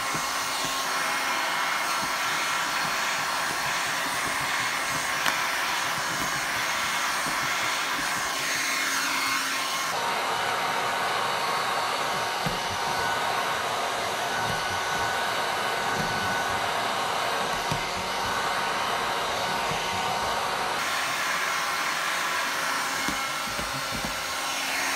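Handheld electric heat gun blowing steadily without a break. It is heating thick paint-protection film to shrink and form it onto a curved windshield.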